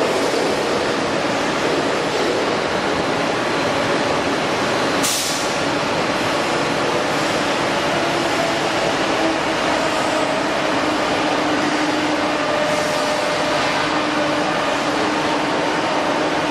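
Hydraulic metal-cutting circular saw machine running steadily: a 4 hp motor driving the blade through a reduction gearbox at the low speed used for stainless steel, with a sharp brief noise about five seconds in.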